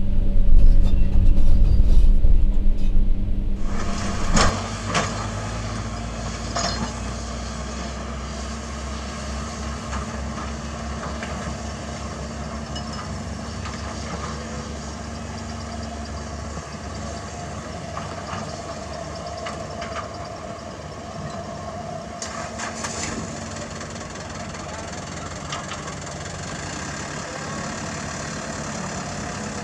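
Kobelco excavator's diesel engine running, heard loud and low from inside its cab for the first few seconds. After a cut, a Komatsu excavator and a dump truck's diesel engines run steadily outdoors, with a few sharp clanks as broken asphalt is loaded.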